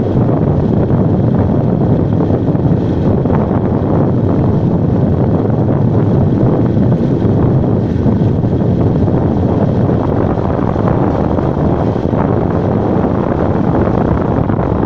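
Wind buffeting the microphone of a moving road vehicle: a loud, steady rumbling rush of air and road noise with no clear engine note.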